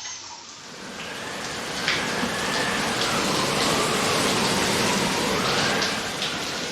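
Water spraying from a wall-mounted shower head, starting about half a second in, swelling over the next second or so and then running steadily.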